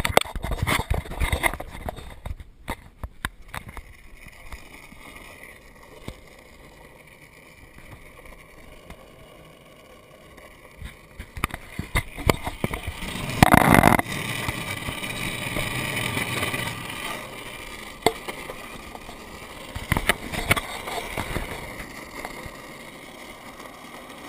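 Longboard wheels rolling over asphalt, a steady rolling noise picked up by a GoPro carried by the rider. A cluster of clicks and knocks comes in the first few seconds, and a loud rush of noise about halfway through.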